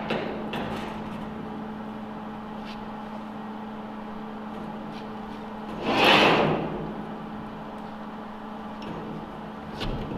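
A steady low hum with faint ticks, and about six seconds in a short burst of MIG welding crackle, lasting under a second: a quick tack or plug weld on the steel truck rack.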